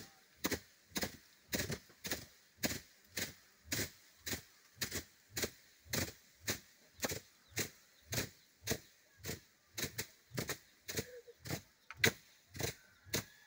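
Long wooden sticks beating a thick layer of dry crop stalks, threshing grain by hand: a steady, even rhythm of sharp thwacks about two a second from several people striking in turn.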